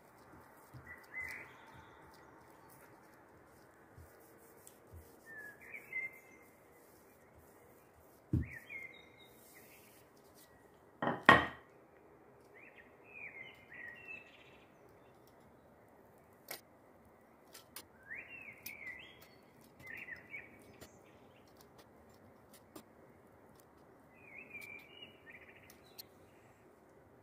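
A small bird chirping in short calls every few seconds, over a faint steady hum. Two sharp knocks break in, the louder one about eleven seconds in.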